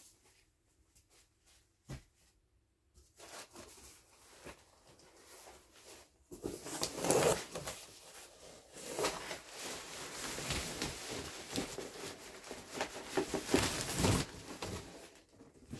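Packaging being torn and handled: rustling, crinkling and tearing that starts about six seconds in, after a near-quiet stretch with a single click.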